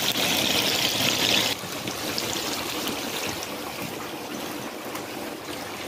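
Sliced onions sizzling in deep hot oil in a kazan, a steady hiss that drops a step in level about a second and a half in.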